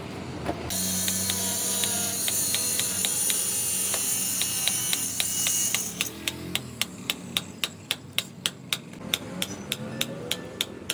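Rapid, evenly spaced sharp strikes at about three a second through the second half, like a hammer on metal; before that a steady high hiss with scattered knocks.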